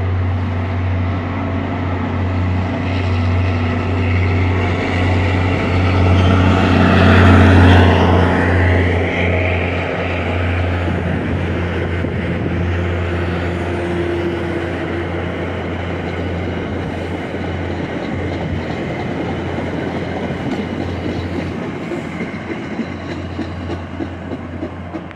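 MBTA commuter rail train passing close by. The diesel locomotive's engine hum is loudest about seven seconds in, and its pitch drops as it goes past. The bilevel passenger coaches follow, rolling by with their wheels clicking over the rail joints.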